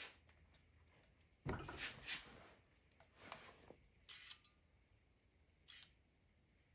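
A few short, faint hisses of compressed air from a hand-held air inflator gun, fed into a two-stroke engine cylinder to pressurise it for a leak-down test.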